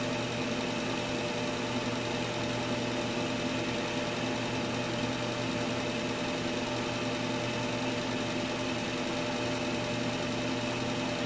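Small electric motor running at a constant speed with a steady hum. It is turning a magnet past a Hall-effect RPM sensor at about 625 RPM.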